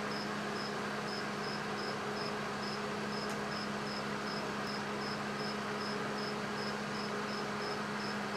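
A cricket chirping steadily, a short high chirp about twice a second, over a constant low hum.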